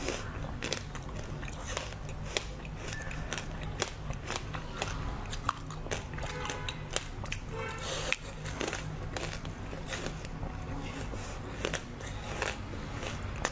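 Close-up eating sounds of frozen basil-seed ice balls with a chocolate-like shell: sharp crunching bites and cracks of the ice, followed by chewing, as many short crisp clicks, over a steady low hum.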